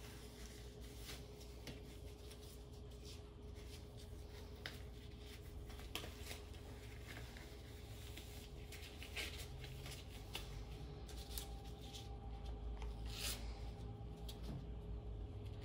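Nitrile gloves being pulled onto the hands: soft rubbery rustling with scattered light clicks, over a faint steady hum.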